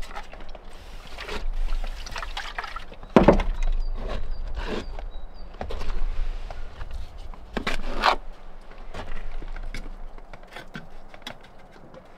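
Stone masonry work: irregular knocks and scrapes of flat stones being handled and set on a stone wall, with the loudest stone-on-stone knock about three seconds in and another near eight seconds.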